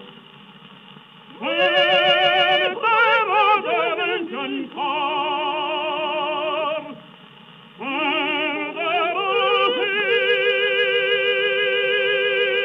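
Operatic singing with a wide vibrato in long held notes, broken by short pauses and coming in again about a second and a half in and near eight seconds, over a soft accompaniment. The sound is thin and narrow, as on an early acoustic-era opera recording.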